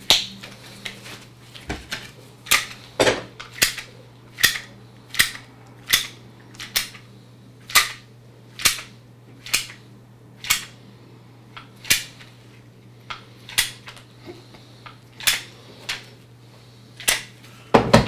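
Sharp clicks, about twenty of them at roughly one a second, at an uneven pace, over a faint steady low hum.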